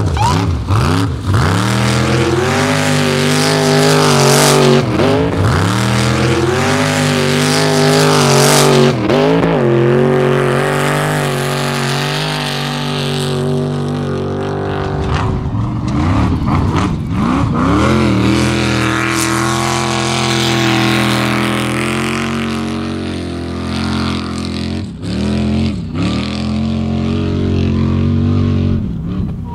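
Off-road race car engine revving hard, its pitch climbing and falling again and again, with abrupt cuts between passes.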